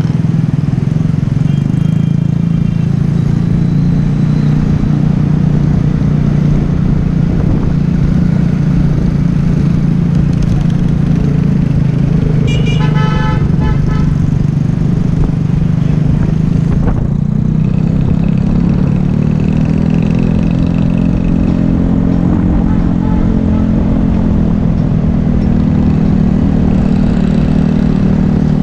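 Yamaha Taurus motorbike's small single-cylinder engine running steadily under way, with horns honking in the surrounding traffic: a honk of about a second halfway through and shorter toots near the start and later on.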